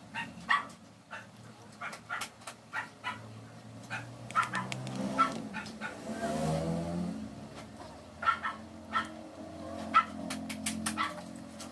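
Spoon-feeding a baby: a spoon clicking against the bowl and the baby's mouth smacking on the food, in short, irregular clicks. About six seconds in there is a brief whining vocal sound that bends up and down in pitch.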